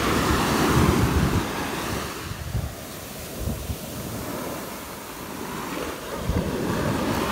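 Shallow surf washing up the sand and over bare feet at the water's edge, with wind buffeting the microphone. The wash is loudest in the first couple of seconds, falls back, and surges again near the end.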